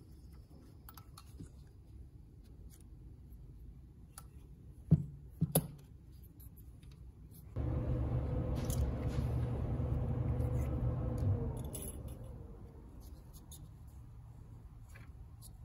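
Light metallic clicks and handling noises from a Quadrajet carburetor's linkage and body being turned in the hands, with two sharp clicks about five seconds in. About halfway through, a louder steady low hum starts, lasts about four seconds and fades out.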